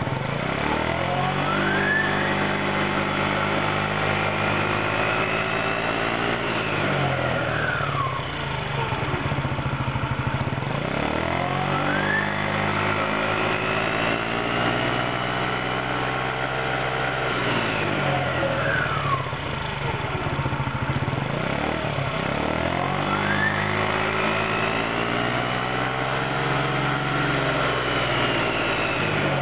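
Baotian scooter's 50cc GY6-type 139QMA/QMB four-stroke single engine, with its CVT belt drive running, revved up and let back down three times. Each time the pitch climbs slowly for about five seconds, then falls back to idle over two or three seconds.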